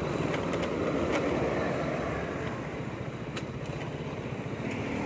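Small motorcycle's engine running while it is ridden, a steady low drone with a few light ticks.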